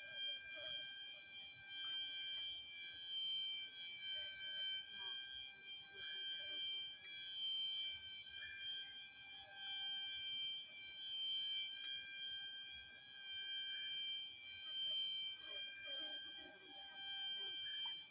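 Tropical forest insects calling in chorus: several steady high-pitched tones sounding together without a break.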